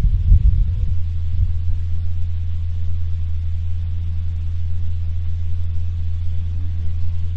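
A steady low hum, unbroken and loud, with a few low thumps in the first second and a half.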